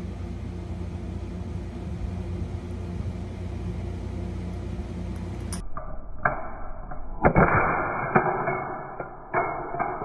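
Monofilament fishing leader with an oval aluminum crimp sleeve being pulled to its breaking point on a digital hanging scale. A steady low hum, then from about halfway a few sharp snaps and loud noisy bursts as the loaded line and crimp strain, the loudest jolt near the end.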